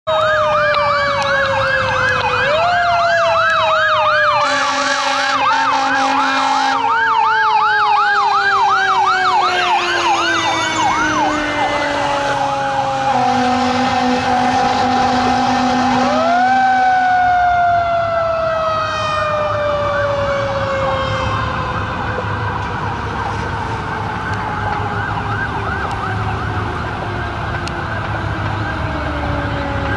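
Fire engine sirens on an emergency run: a fast yelp gives way after about twelve seconds to slow rising and falling wails, with more than one siren sounding at once. Two long steady horn blasts come around five and thirteen seconds in, and a low engine rumble sits under the sirens in the second half.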